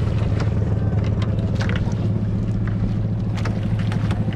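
Small outrigger boat's engine running steadily, a low even drone with a fast regular pulse, with short knocks and splashes over it.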